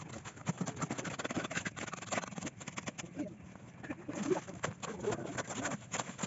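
Shovel and mason's trowel scraping through wet concrete and gravel as concrete is scooped into a wooden form and spread, a run of short scrapes and knocks that eases off a little past halfway.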